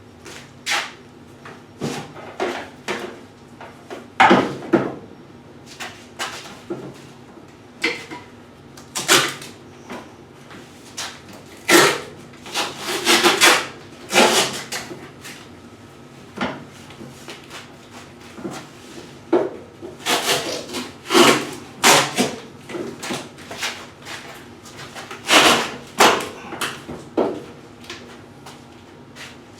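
Irregular knocks, clatters and short scrapes of hands-on work with tools and parts, some in quick clusters, over a faint steady hum.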